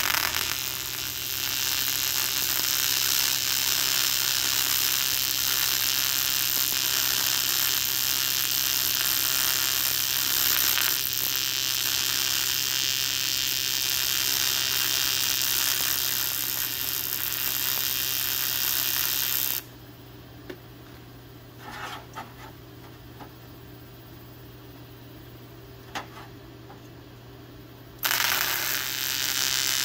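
TIG welding arc on aluminum exhaust tubing, a steady buzzing hiss. It stops about two-thirds of the way through, leaving a few light clicks, then strikes again near the end.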